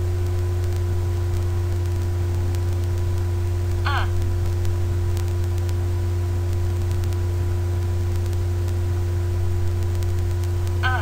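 Steady loud electrical mains hum with fainter higher steady tones, broken twice by a brief faint voice sound, about four seconds in and near the end.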